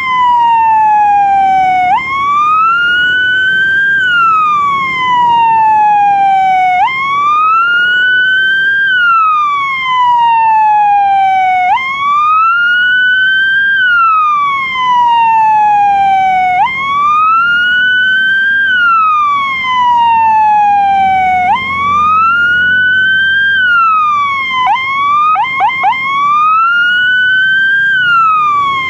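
Fire engine siren wailing: each cycle jumps up, rises for about two seconds, then falls for about three, repeating about every five seconds. About three-quarters of the way through it breaks into a few quick yelps, then returns to the wail.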